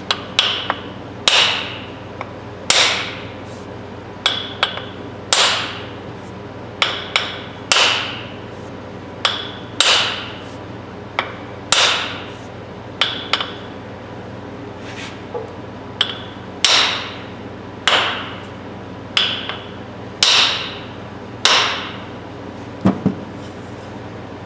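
A hammer striking the end of a wooden hammer handle about once a second, sometimes twice in quick succession, each blow with a short ring. The blows drive the handle down into a brass sledgehammer head to seat it, and the handle is seating well.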